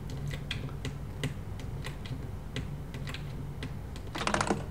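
Scattered sharp clicks from a computer keyboard, a few per second, ending in a quick rattling run of clicks about four seconds in, over a low steady hum.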